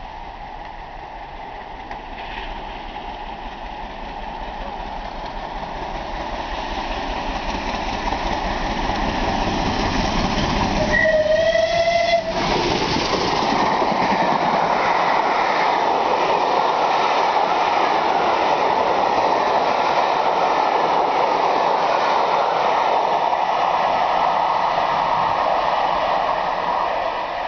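Bulleid Battle of Britain class steam locomotive Tangmere and its train passing at speed: a rumble that grows as it approaches, with one short steam whistle blast just before the engine passes. Then the carriages' wheels rumble and clack past steadily, fading near the end.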